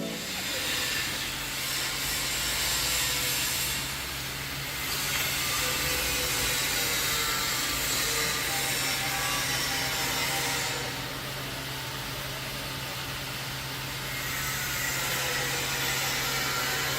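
Toilet-paper roll bandsaw cutting machine (CIL-SP-400) running, its band blade cutting through paper logs: a steady motor hum under a hiss that eases off twice, at about four seconds in and again near the middle.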